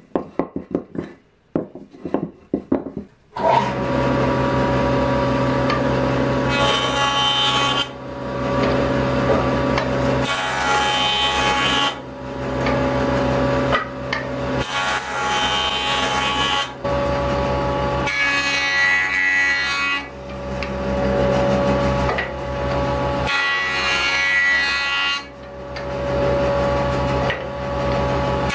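A few sharp wooden knocks as boards are set down and shifted on a workbench. Then an electric jointer runs with a steady hum while boards are fed over its cutterhead, the cutting noise swelling and falling back with each pass.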